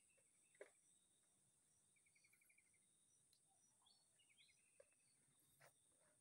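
Faint outdoor ambience: a steady high-pitched insect drone with scattered bird chirps, including two short rapid trills, and a few soft clicks.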